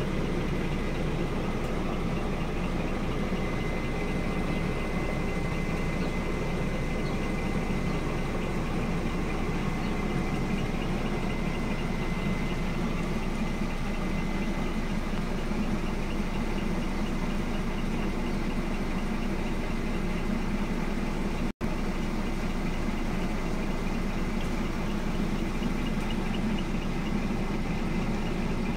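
Scania R 480 truck's diesel engine idling steadily, heard from inside the cab. A faint steady high whine runs through the first half, and the sound cuts out for an instant about two-thirds of the way through.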